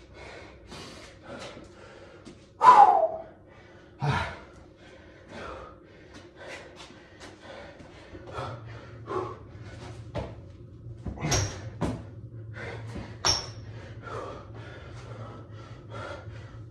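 A man breathing hard, out of breath from burpees, in short quick breaths, with a loud gasping exhale about three seconds in. A low steady hum comes in about halfway.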